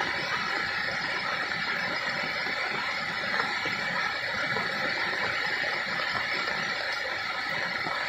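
Steady, unbroken rush of falling water.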